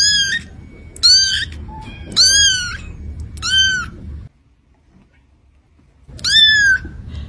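A cat meowing: four short, high-pitched meows about a second apart, then one more after a pause near the end.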